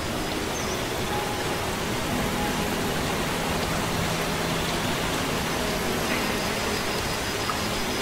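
Steady rushing-water noise of a waterfall and stream, an even hiss with no breaks.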